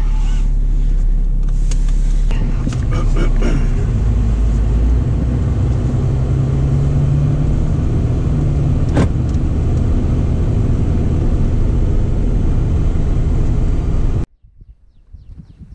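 Ram pickup truck driving, its engine and road rumble heard from inside the cab, the engine tone rising as it speeds up about five seconds in. A few clicks in the first four seconds and a sharp click about nine seconds in; the rumble cuts off suddenly about a second and a half before the end.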